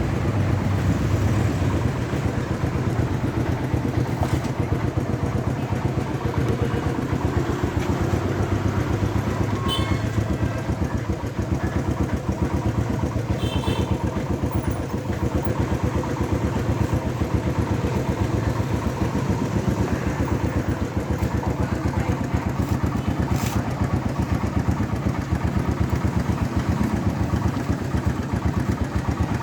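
A small engine idling steadily, with a fast even pulse, and a few faint clicks.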